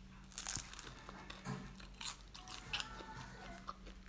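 Crisp fried turon (banana and meat in a spring-roll wrapper) being bitten and chewed close to the microphone: a loud crunch about half a second in, then more crunching and crackling as it is chewed.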